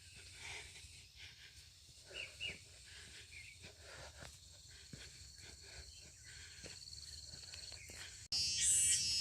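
Outdoor hillside sound: faint bird-like chirps and scattered clicks, with a thin, steady, high insect-like buzz growing from about halfway. Near the end it cuts abruptly to a much louder high-pitched buzz that swells and fades about once a second.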